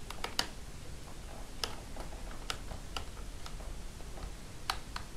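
A screwdriver turning the little Phillips screws back into the side of a laptop's plastic screen frame makes sharp, irregular clicks. Three come in quick succession at the start, then single clicks follow every half second to a second.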